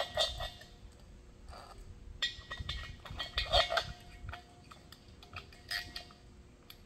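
Metal dial thermometer being fitted into a hole in the side of a glazed earthenware jar: irregular clicks, taps and short scrapes of metal against ceramic as it is pressed and turned into place, loudest about three and a half seconds in.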